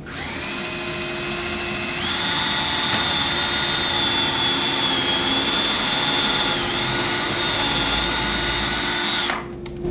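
Power drill pre-drilling and countersinking a screw hole for a bugle head screw: a steady motor whine that steps up in pitch about two seconds in, then stops shortly before the end, followed by a short click.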